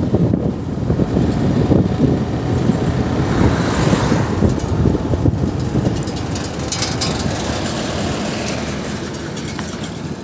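Steady engine and road noise from a vehicle travelling along a road. The noise eases off over the last few seconds as the vehicle slows.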